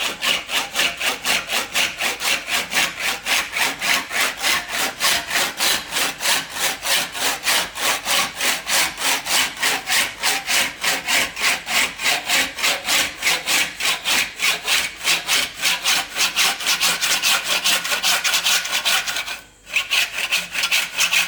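Dovetail saw cutting through a plastic fork preload spacer tube, in quick, even back-and-forth strokes, about four a second. The sawing breaks off briefly near the end, then resumes.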